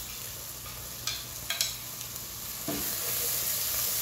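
Chopped bacon and calabresa sausage with garlic and onion sizzling in a pot as diced tomato is scraped in off a plate with a metal spoon, with a few sharp spoon clicks a little over a second in. The sizzling gets louder near the end as the pan is stirred.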